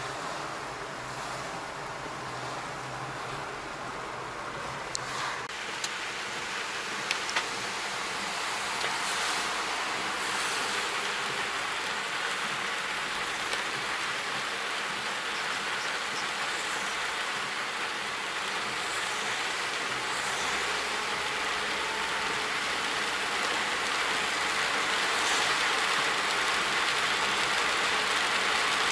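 Heavy rain and wet-road tyre noise heard from inside a moving car's cabin, a steady hiss that grows gradually louder, with a couple of sharp clicks about five and seven seconds in.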